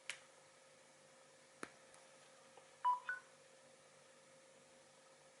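Two sharp clicks, then about three seconds in a short two-note electronic beep whose second note is higher.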